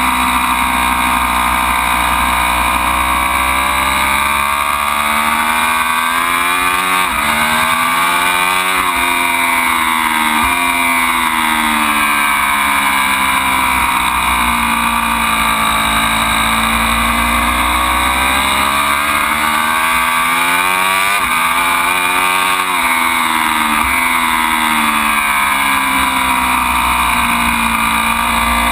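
Ducati Panigale V4's V4 engine running hard at track speed, its pitch climbing and sinking over several seconds at a time as the bike accelerates and slows, with abrupt jumps in pitch at gear changes a few times.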